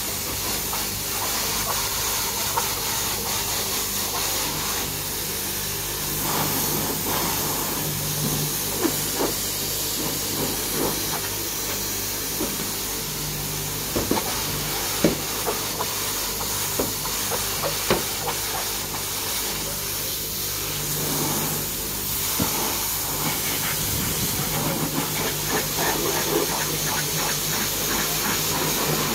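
High-pressure washer jet spraying water against a pickup's wheel and lower bodywork: a steady hiss with a low hum underneath and a few sharp clicks about halfway through.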